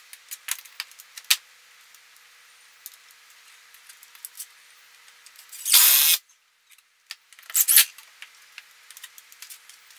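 Light metallic clicks and rattles from a steel wall-mounting plate and a small level being handled and adjusted against the wall, with two short, loud bursts of noise about six and seven and a half seconds in.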